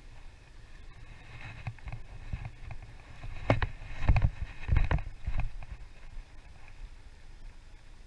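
A run of knocks, clicks and thumps from handling the fishing rod and a freshly landed small fish, loudest in the middle and dying away near the end.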